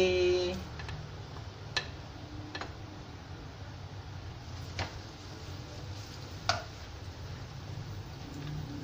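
Chopped garlic frying in hot oil in a nonstick wok: a steady soft sizzle, with a handful of isolated sharp ticks scattered through it.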